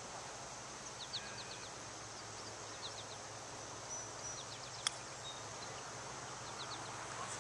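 A golf club striking the ball once on a short bump-and-run chip, a single sharp click about five seconds in. Birds chirp in small groups of quick notes on and off throughout.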